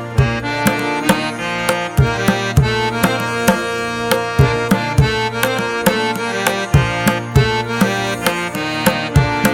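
Background music: sustained melodic notes over a steady, quick hand-drum beat.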